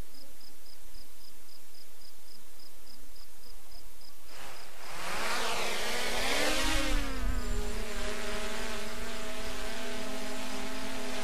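A faint, even high ticking several times a second, then about four to five seconds in a vehicle passes close by with a rushing sound that swells and falls away, leaving a steady engine drone with a low rumble.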